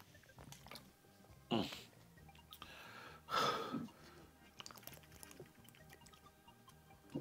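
A person drinking from a plastic water bottle: faint gulps and swallows with small clicks. Two louder noisy sounds come about one and a half and three and a half seconds in.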